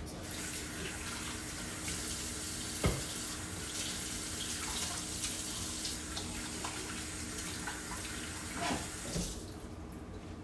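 Kitchen sink faucet running as hands are washed under it, shutting off about nine seconds in. A sharp knock comes about three seconds in.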